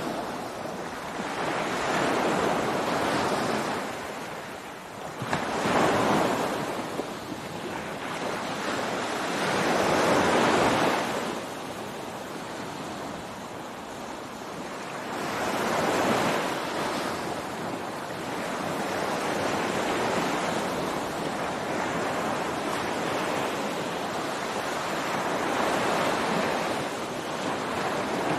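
Ocean surf breaking on a beach, each wave swelling to a rush and washing back, one after another every four to six seconds.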